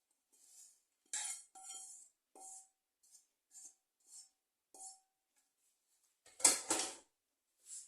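A metal spoon or spatula scraping and clinking against a metal tray or pan in a series of short strokes, some leaving a brief ring. A louder clatter comes about six and a half seconds in.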